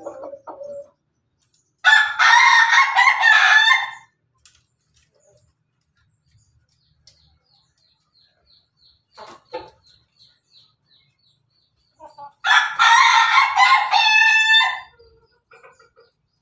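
Rooster crowing twice, each crow lasting a little over two seconds; the second crow ends in a rapid stuttering run of notes.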